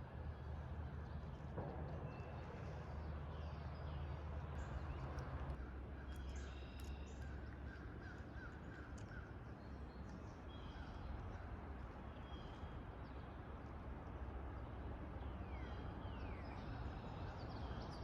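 Woodland birds calling, with scattered short calls and chirps, several of them quick downward-sliding notes near the end, over a steady low rumble.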